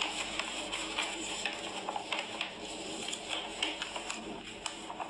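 A sheet of drawing paper crackling and rustling as it is unrolled and handled, with many small irregular crackles.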